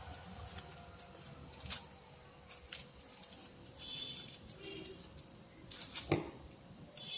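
Paper rustling and crinkling as a fringed strip of craft paper is handled and rolled up by hand, with a few sharp crackles, the loudest about six seconds in.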